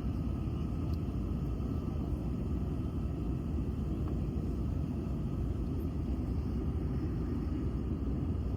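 Passenger airliner noise: a steady, even low rumble that does not change.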